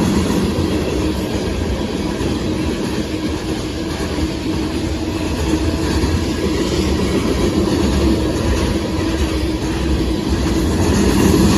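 Union Pacific freight train's hopper cars rolling past on the track: a steady, loud rolling noise of wheels on rail that holds even throughout.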